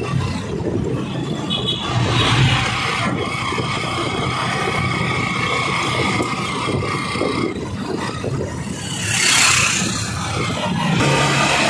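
Motorcycle tricycle running along a paved road: steady engine and road noise, with a brief louder rushing sound about nine seconds in.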